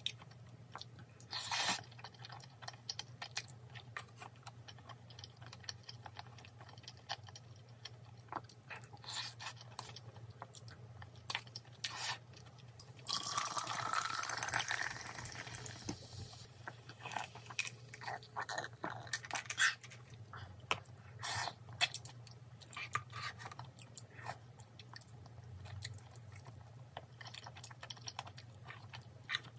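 A person chewing and crunching food, with many short clicks and small knocks scattered throughout, and a louder hissing noise for about three seconds around the middle.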